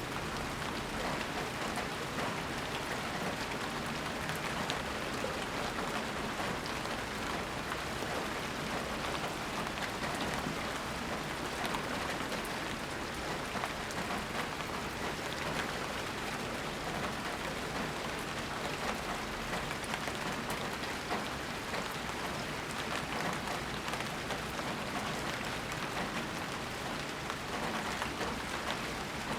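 Steady rainstorm: a dense, even patter of raindrops falling without letup.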